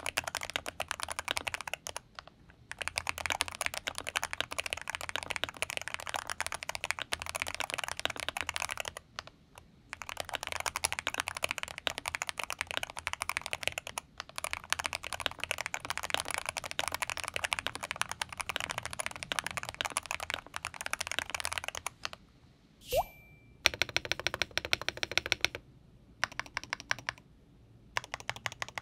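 Fast typing on a KBDfans Holy60 60% custom keyboard with an FR4 plate and Geonworks RAW HE 40 g magnetic switches, built without any foam dampening: dense, clacky keystrokes with a few short pauses. About 22 seconds in there is a brief rising glide, then typing switches to a KBDfans Tofu60 Redux with Gateron Jade switches, its strokes sharper and more ringing.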